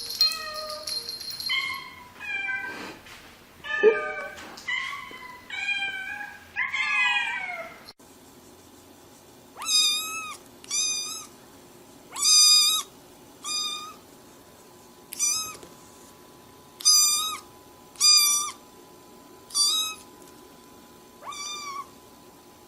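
Cat meowing over and over in high-pitched calls. For the first several seconds the calls run close together and overlap, then come as separate short meows about one every second and a half.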